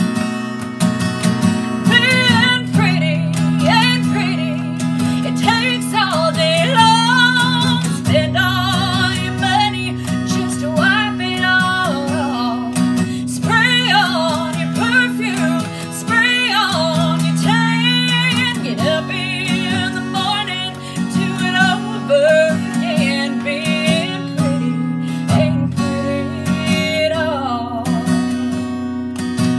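A woman sings a country song, accompanying herself on a strummed acoustic guitar. Her voice comes in about two seconds in, with vibrato on the held notes.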